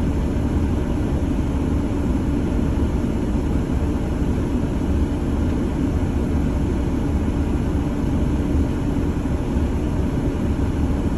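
Semi truck's diesel engine idling, a steady low rumble heard from inside the cab.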